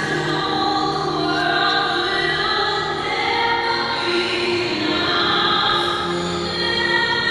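Choral classical music with long held voices, played over an ice rink's sound system.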